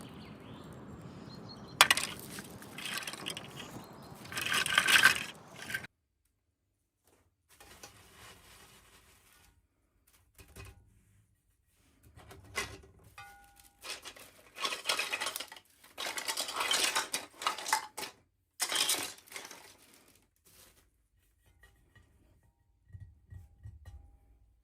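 Small hard plastic toy pieces and packaging being handled, clicking and clinking against each other in irregular bursts, with sharp clicks, a loud stretch in the first six seconds and spells of dead silence between.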